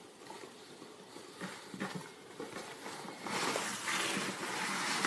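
A cat scraping and rustling at a sheet of cardboard with tape on it. The sound is faint scratching at first and gets louder and denser about three seconds in.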